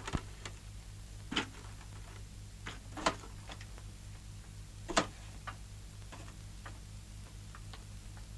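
A steady low hum with scattered sharp clicks and knocks, a second or two apart; the loudest knocks come about a second and a half, three and five seconds in.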